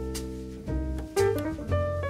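Background jazz music: piano chords and melody notes over a low bass line, with light cymbal strokes.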